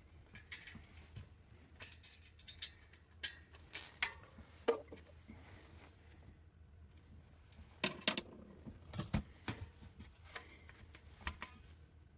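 Faint, irregular clicks and knocks of hands working a wheelchair tyre and wheel during a tyre change, bunched about three to five seconds in and again around eight to nine seconds, over a low steady hum.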